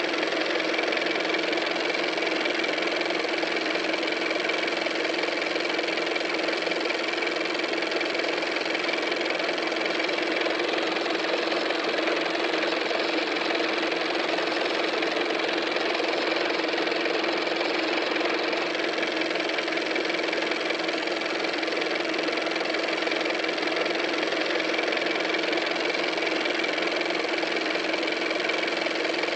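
A steady machine-like hum and hiss that never changes, with two steady tones running through it.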